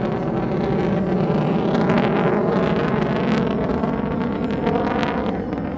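F-22 Raptor's twin Pratt & Whitney F119 turbofans roaring loudly as the jet flies its demonstration, with a crackling rasp through the middle of the sound.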